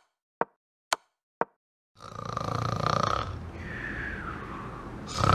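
Quick clicks of pieces moved on an online chess board, about two a second, then from about two seconds in a man's long, loud snoring: the player has fallen asleep mid-game.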